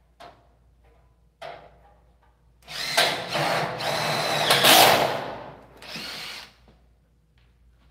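Cordless drill driving screws out of the clips of a metal door frame in a steel stud wall: one long run of about two and a half seconds starting about three seconds in, then a short second burst.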